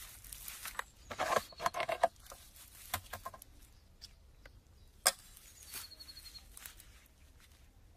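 Handling noises from a petrol chainsaw with its engine off: scattered plastic clicks and rustling as it is turned in gloved hands, busiest between one and two seconds in, with one sharp click about five seconds in. A short high chirping sounds near the end.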